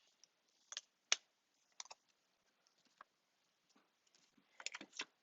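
Faint, scattered small clicks and taps of a precision screwdriver bit and tiny screws as the Taptic engine is screwed back into the iPhone 6s, with a sharper click about a second in and a few quick ones near the end.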